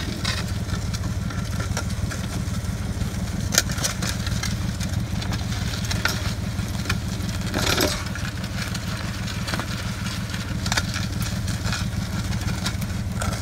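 Tractor engine running steadily at low speed while pulling a plastic-mulch-laying implement across tilled soil. Scattered light clicks and rattles come through, with a sharper click a few seconds in and a short rustle near the middle.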